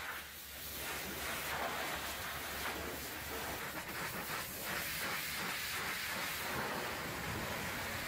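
High-pressure water jet from a pressure washer wand blasting dried concrete and mud off the steel rear end and discharge chute of a concrete mixer truck: a steady rush of spray spattering on metal.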